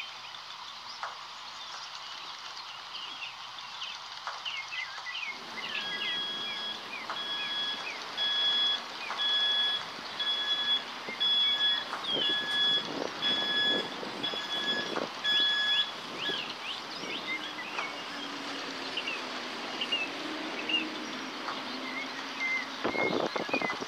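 Homemade electronic fire alarm's buzzer beeping in a steady series, a little faster than once a second. It starts about five seconds in and stops after about ten seconds. Birds chirp throughout.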